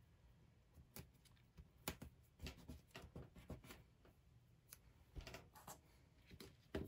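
Faint scattered taps and rustles of hands handling cardstock pieces and thread on a craft mat, the sharpest tap near the end.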